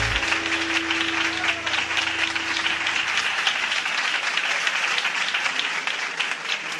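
An audience applauding, a dense patter of many hands clapping that fades toward the end. The last held note of the music dies away under it in the first three seconds.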